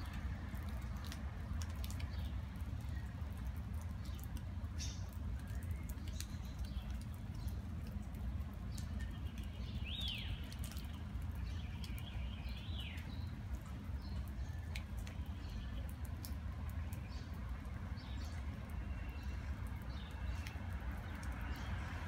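A few short bird chirps, the clearest about ten and about thirteen seconds in, each a quick sliding call, with some fainter calls between. Under them runs a steady low rumble, with scattered light ticks throughout.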